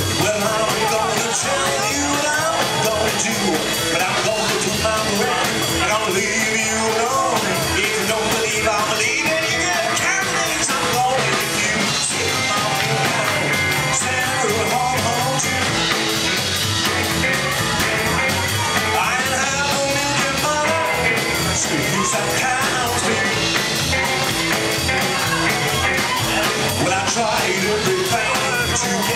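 A rockabilly band playing live: electric guitar, upright double bass and drums, with a steady driving beat.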